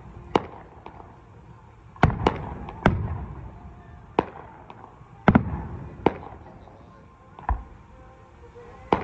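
Aerial fireworks bursting overhead: about eight sharp bangs at uneven intervals, a few coming close together, each trailing off in a rumbling echo.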